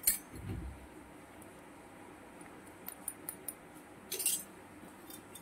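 Small stainless-steel toy kitchen utensils clinking as they are handled: a sharp clink right at the start, a soft thump just after, a few light ticks around three seconds in, and a short cluster of clinks just past four seconds.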